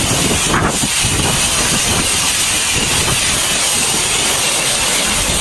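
Jet-wash lance spraying high-pressure water onto a car, rinsing off the foam: a steady, loud hiss of the spray.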